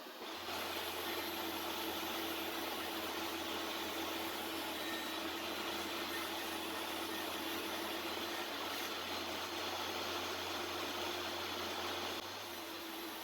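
Table saw running steadily with a constant hum, dropping off sharply near the end.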